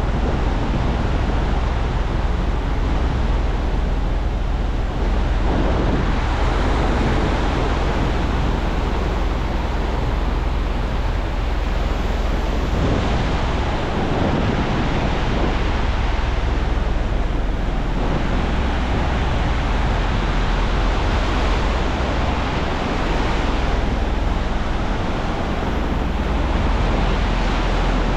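Ocean surf breaking and washing up the beach, swelling and easing every several seconds, with wind rumbling on the microphone.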